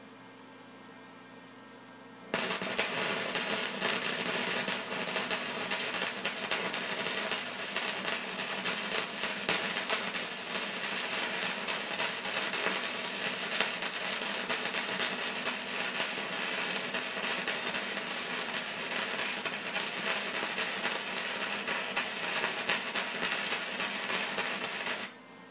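Flux-core 125 wire-feed welder arc welding 3/16-inch steel on its highest setting with a wire speed of 2: the arc strikes about two seconds in, crackles and sizzles steadily for over twenty seconds, then stops suddenly near the end.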